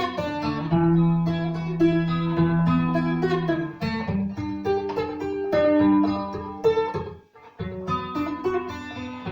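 Seagull Merlin M4, a four-string fretted dulcimer-style instrument, being plucked: a melody of ringing single notes over sustained low notes, with a short break about seven seconds in before the playing resumes.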